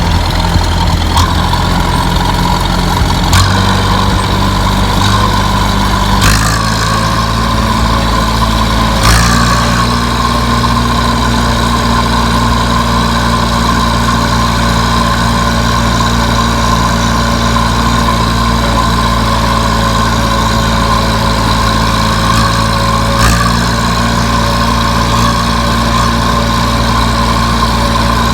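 Farm tractor engine running hard under load, pulling a full silage wagon up a hill. The steady engine drone steps to a new pitch several times, each change marked by a short click.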